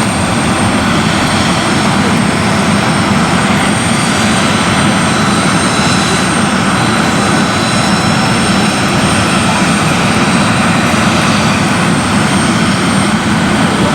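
Jet airliner engines running steadily: a loud, even rush with thin, steady high-pitched whine tones, neither rising nor falling.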